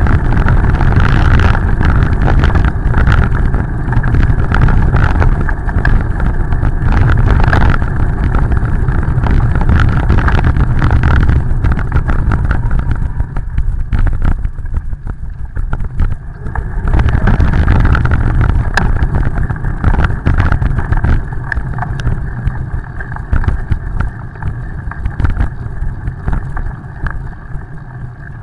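Wind buffeting the microphone of a camera on a moving bicycle: a loud, steady rumble, with tyre hiss on wet pavement underneath. It dips briefly in the middle and eases over the last several seconds as the bike slows.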